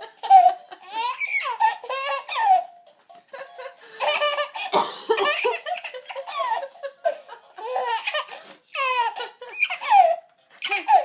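Baby boy laughing in repeated high-pitched belly laughs and giggles, burst after burst with short breaks between.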